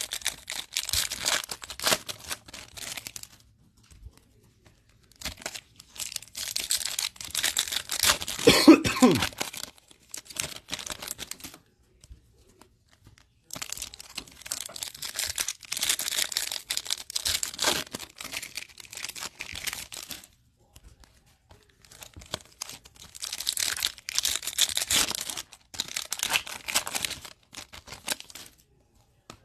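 Foil wrappers of Topps Chrome trading-card packs being torn open and crinkled by hand, in four bouts of a few seconds each with short quiet gaps between. One brief, louder, lower sound about nine seconds in.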